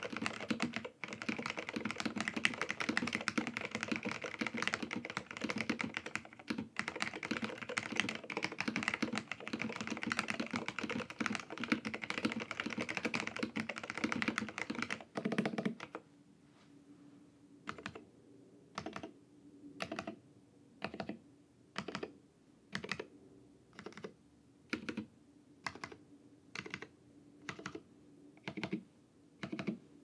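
Fast typing on an AEK64 mechanical keyboard with dry-lubed SKCL Green Alps switches, which are linear, and AEKII keycaps. A little over halfway through, the steady typing stops, and from then on single keys are pressed one at a time, about once a second.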